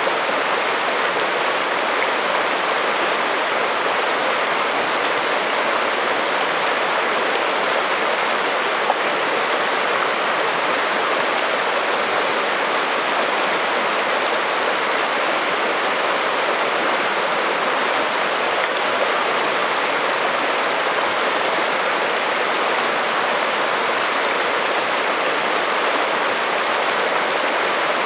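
Chalk Creek, a shallow high-mountain creek, running over a rocky cobble bed in a steady, even rush of water.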